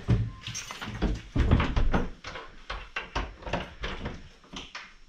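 A ship's cabin door being opened: latch clicks and knocks, with a heavier thump about a second and a half in, then a quick, even run of taps as someone walks through.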